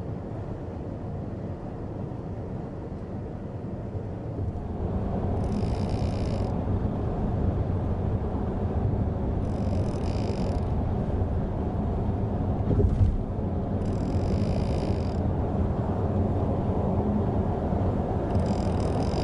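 Steady road and tyre noise inside the cabin of a Mitsubishi Outlander PHEV at expressway speed, growing a little louder about four seconds in. A short high hiss comes back about every four seconds, four times, and there is a single low thump about two-thirds of the way through.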